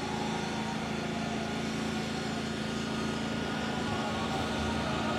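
A wildfire suppression truck's engine runs steadily while it pumps water out through its hoses, giving a constant hum.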